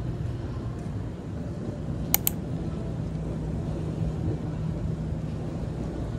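Steady low rumble of city street ambience, mostly traffic, with a faint hum, and two sharp clicks in quick succession about two seconds in.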